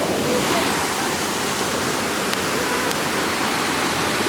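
Steady rush of a river waterfall, water pouring continuously.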